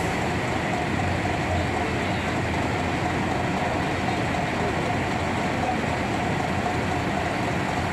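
Coach bus driving slowly across a paved lot, its engine running steadily under a continuous background din, with a faint steady tone throughout.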